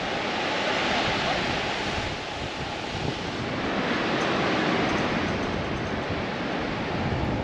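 Steady wash of ocean surf with gusting sea breeze buffeting the microphone in low rumbles.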